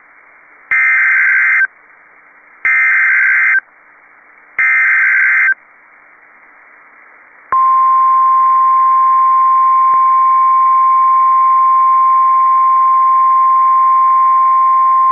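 Emergency Alert System alert tones. Three one-second bursts of warbling SAME header data, about two seconds apart, then from about seven and a half seconds a single steady, piercing attention tone, all over a faint hiss.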